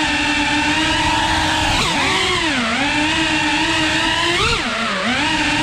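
FPV quadcopter's motors and propellers whining at a steady pitch, twice briefly throttled up and then cut back, so the pitch jumps, dips low and settles again.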